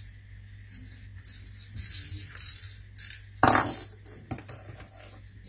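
Small metal jingle bell jingling in short bursts as a paper dragon puppet bats it about, with a knock about three and a half seconds in.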